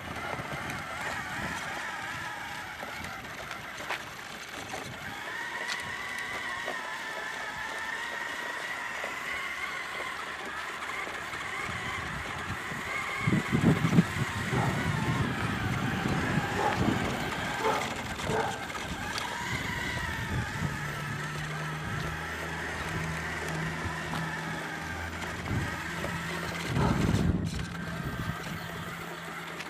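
Electric drive motor and gearbox of a radio-controlled scale model truck whining as it drives, the pitch wavering up and down with its speed. Wind gusts on the microphone, and a low steady hum joins about two thirds of the way in.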